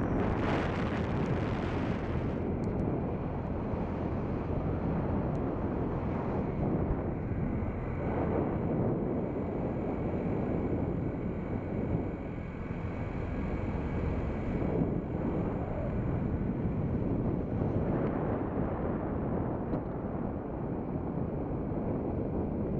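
Steady wind rushing over the microphone of a camera on a moving bike, with low road rumble underneath.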